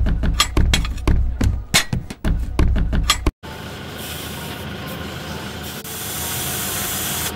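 Background music with a steady beat for about three and a half seconds, then a steady hiss of air escaping through an off-road tyre's valve as the tyre is aired down for off-roading, growing slightly louder near the end.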